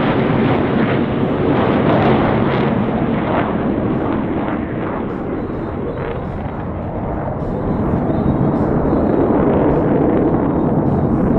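Military jets flying past with a loud, continuous jet roar and crackle. It eases slightly around six seconds in, then swells again.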